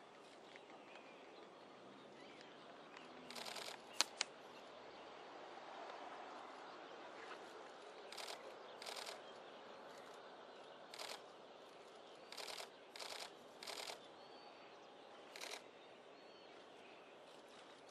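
Camera shutters firing in short rapid bursts, about eight times, with two sharp single clicks about four seconds in, over faint outdoor background noise.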